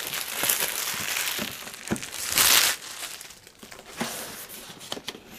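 Clear plastic wrap crinkling and rustling as it is pulled off a cardboard router box, loudest in a brief burst about two and a half seconds in. After that it goes quieter, with a few light knocks as the box is handled.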